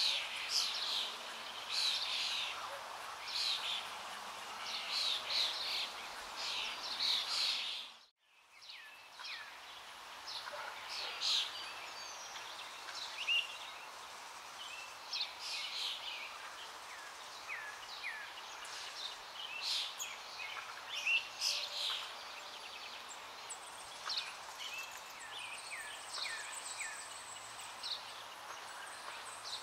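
Many small birds chirping in short, irregular calls over a steady outdoor hiss. The sound cuts out abruptly for a moment about eight seconds in, then the chirping resumes.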